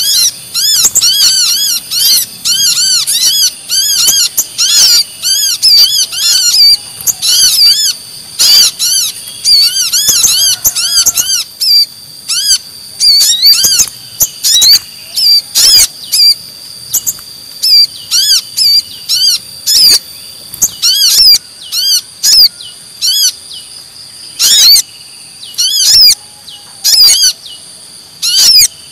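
Bird-lure recording of agitated brown-throated sunbird (kolibri kelapa) calls mixed with sogon calls. Fast series of high, rising-and-falling chirps are broken every second or two by loud, sharp call notes. The chirping thins and turns to longer held high notes after about twelve seconds.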